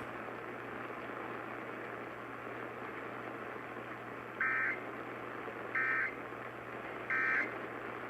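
Three short bursts of Emergency Alert System digital data tones (SAME warbling) over steady radio static, evenly spaced about a second and a half apart. Bursts this short and sent three times are typical of the EAS end-of-message code.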